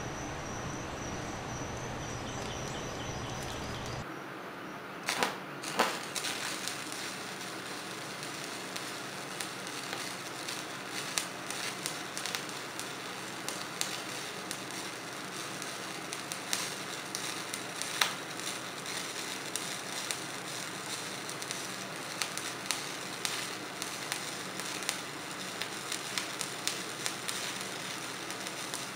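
Electric arc welding: a steady crackle and sizzle with scattered sharp pops, starting about four seconds in after a low steady hum.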